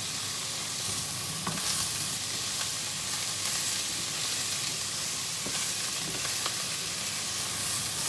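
Mixed vegetables sizzling steadily in hot oil as they are stir-fried, with a few light knocks of the spatula against the pan.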